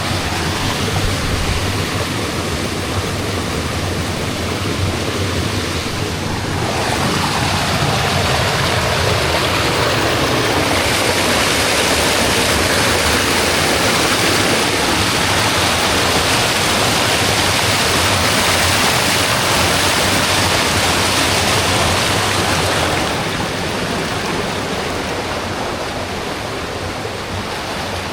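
Waterfall and stream water rushing in a steady, loud hiss; it swells about a quarter of the way in and falls back a little near the end.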